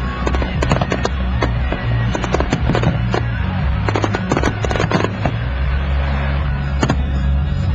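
Fireworks display: shells bursting in quick succession, a dense run of bangs and crackles.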